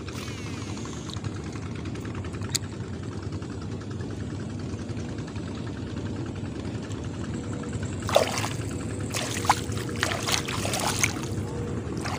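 A low engine runs steadily in the background, with a few short noisy bursts about eight to eleven seconds in.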